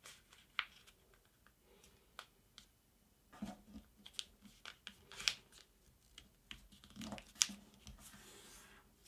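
Thin kami origami paper being handled and folded by hand: faint scattered crackles and rustles with a few sharper clicks, and a longer soft rustle about seven seconds in.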